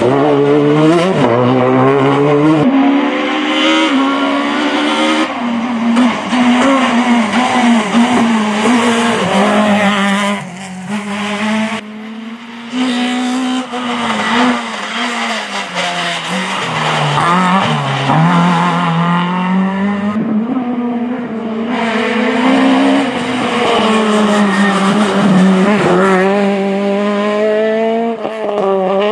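Rally cars driven hard on a tarmac stage, one after another. Their engines rev high, rising and falling through the gears and easing off for the bends.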